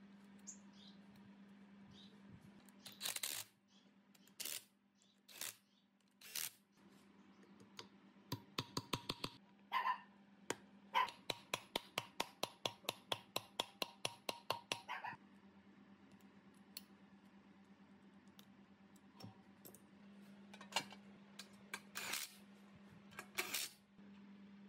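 Rubber mallet tapping the cooling fan onto the rear shaft of a three-phase electric motor: a few separate knocks, then a fast even run of light taps, about four a second, for several seconds, then a few more knocks near the end.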